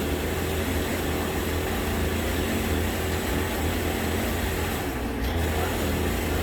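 Chainsaw in a chainsaw mill running steadily under load while it rip-cuts a walnut log along its length.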